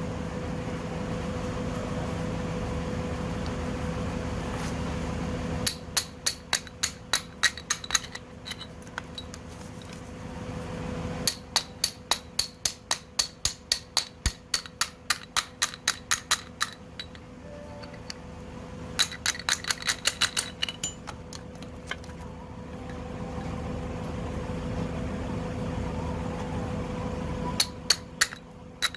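Hand-tool work on metal engine parts: bursts of sharp, evenly spaced metallic clicks, about five a second, over a steady hum.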